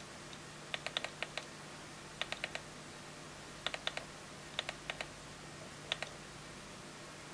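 The knob of a PDVS2 mini voltage source being turned in short spurts, clicking in quick groups of three or four with a second or so between groups. A faint steady low hum runs underneath.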